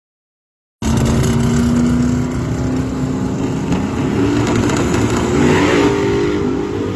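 A loud engine running and revving. It cuts in suddenly about a second in, after dead silence, with its pitch rising and falling.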